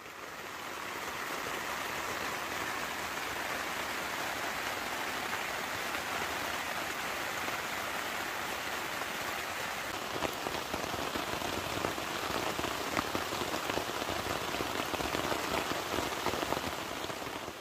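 Torrential rain falling steadily on the fabric of a Nightcat pop-up tent, heard from inside as an even hiss with a few louder single drops. It fades in over the first couple of seconds.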